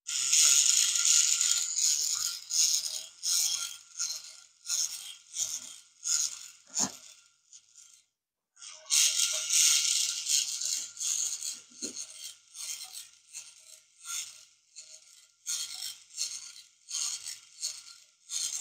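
Solar-powered walking robot kit: its small motor and plastic gearbox run with a faint steady whine while the plastic legs clatter on the wooden table in quick rhythmic steps. It cuts out for about a second around eight seconds in, then starts walking again.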